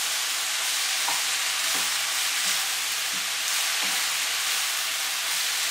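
Broccoli, carrot strips and vegetables sizzling in hot olive oil in a frying pan as they are stirred with a wooden spatula: a steady, even hiss of frying.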